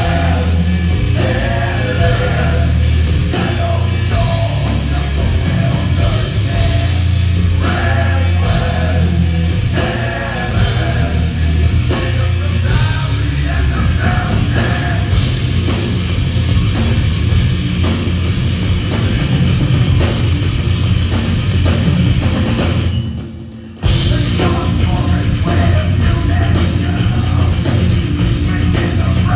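Heavy metal band playing loud, with heavy drums and guitars under a vocalist singing into the microphone. About three-quarters of the way through, the music drops away for about a second and then comes straight back in at full force.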